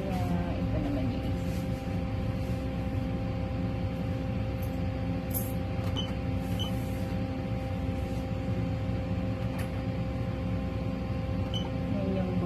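Steady machine hum in a small room, with a few steady tones held underneath and a handful of faint ticks.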